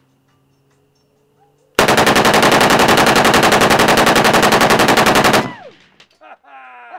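Two full-auto 7.62×39 AK pistols fired together from two 40-round magazines in one unbroken burst of about three and a half seconds, starting about two seconds in: a very fast, even stream of shots that cuts off at once, leaving a short echo.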